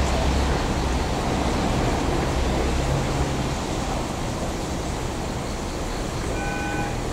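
Demolition excavator's diesel engine running with a steady low drone under a constant wash of machine noise as its hydraulic shear works on the wrecked car body. Near the end a brief high tone sounds for about half a second.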